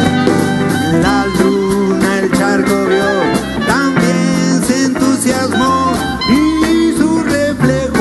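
Live band playing an instrumental passage: guitars, bass and drums keeping a steady beat, with lead notes that bend in pitch.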